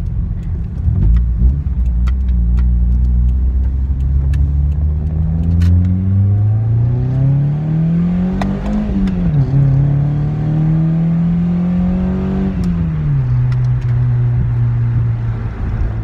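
Toyota Celica ST202 GT's 3S-GE four-cylinder engine heard from inside the cabin, accelerating in first gear with the revs climbing steadily for several seconds. The revs drop sharply at an upshift about nine seconds in, climb again more gently, and drop once more about thirteen seconds in.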